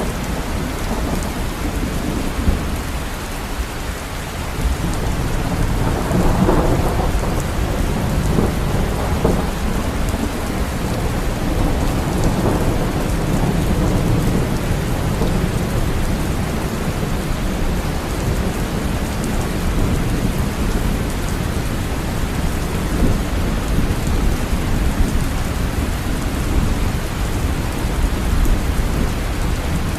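Steady heavy rain falling, with a low rumble of thunder swelling about five seconds in and fainter rolls after.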